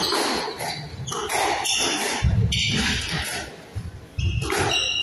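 Squash rally: repeated sharp cracks of the ball off the rackets and walls, with heavier thuds about two and four seconds in and short squeaks of shoes on the wooden court floor near the end.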